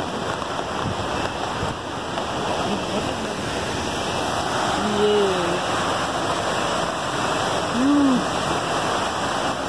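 Steady rush of a large waterfall in full monsoon flow, mixed with heavy rain falling on umbrellas.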